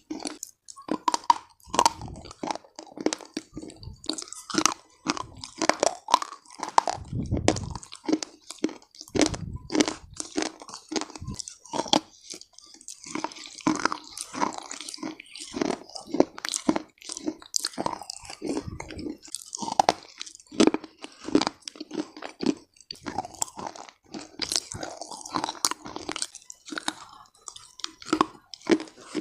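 Close-miked biting and chewing of a crunchy, earthy lump, the kind of chalk or baked clay eaten in ASMR videos. The mouth makes a rapid, irregular run of sharp crunches and crackles, with a couple of low thuds around seven and nine seconds in.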